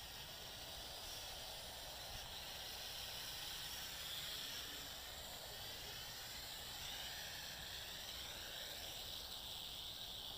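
JXD 509 quadcopter's small electric motors and propellers whining as it hovers and comes down to land, the pitch wavering up and down as the throttle is worked.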